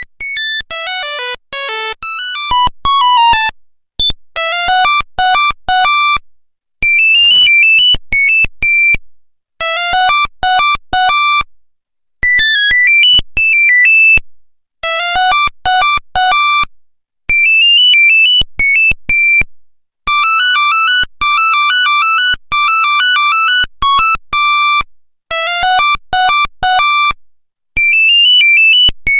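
Nokia 1100 monophonic ringtone: a tune of sharp, buzzy beeping notes played in short phrases with brief pauses between them, the phrases repeating.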